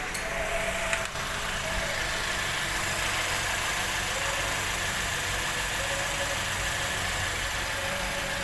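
Perodua Bezza engine idling steadily with a newly fitted water pump, run to check whether the old pump's noise is gone. A brief click comes about a second in.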